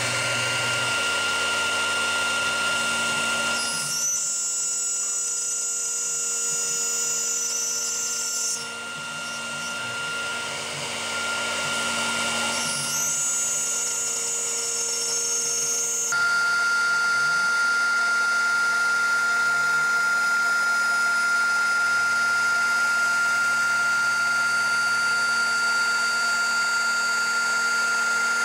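CNC router spindle whining at 12,000 rpm as a 1/8-inch cutter cuts .135-inch phenolic sheet. The whine holds steady while the cutting sound changes a few times, most clearly about 4, 12 and 16 seconds in.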